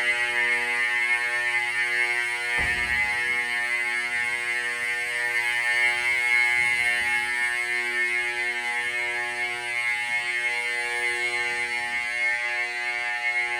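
Vintage fire alarm horns buzzing steadily in full alarm, a loud, harsh, continuous buzz. A single sharp knock sounds about two and a half seconds in.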